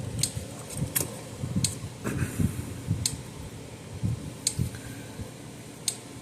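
Bench handling of a Gallagher M150 fence energizer during reassembly: about six sharp, separate clicks and light knocks as parts are moved and fitted, over low rumbling handling noise.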